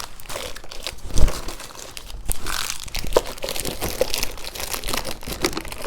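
Plastic snack wrappers crinkling as they are handled, a dense run of crackles, with a louder bump about a second in.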